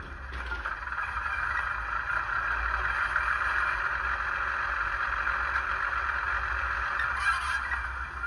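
Ruston 165 diesel shunter engine sound played by a DCC sound decoder through a small model-railway speaker. It grows louder over the first second, then runs steadily, with a short click about seven seconds in.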